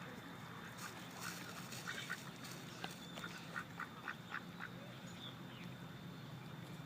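Ducks quacking in a run of short calls, coming faster, about three a second, from about three seconds in, then stopping.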